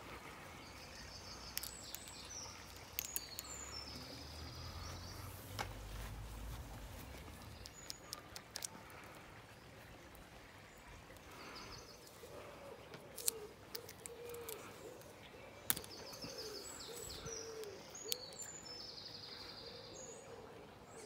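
Birds singing, with bursts of high trilling song about a second in and again near the end, and a lower warbling call in between. Over it come scattered sharp clicks and knocks from hands handling the plastic pipe and conduit elements of a home-made antenna, with a brief low rumble near the middle.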